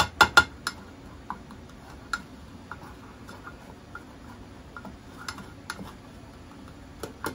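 Plastic spatula tapping and scraping in an aluminium mess tin while curry powder is being dry-roasted: a quick cluster of sharp clicks at the start, then scattered light ticks, with a couple more clicks near the end.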